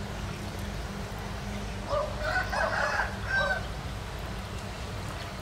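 A rooster crowing once, about two seconds in, for about a second and a half, over a steady low background rumble.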